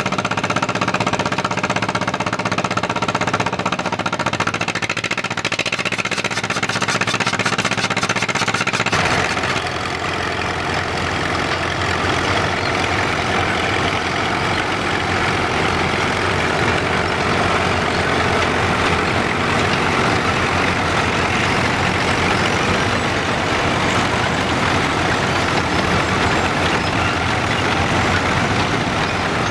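Vintage Caterpillar crawler tractor diesel engine idling steadily. About nine seconds in, the sound changes sharply to a Caterpillar D2 crawler's four-cylinder diesel running as the tractor drives along.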